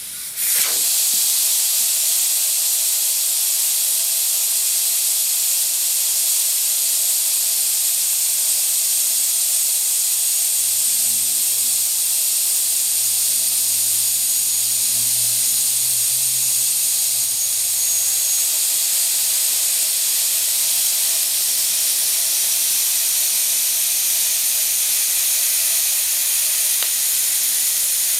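Air hissing out of a car tyre as it is deflated: a steady, loud high-pitched hiss that starts abruptly about half a second in and holds level throughout. A faint low hum sits underneath in the middle stretch.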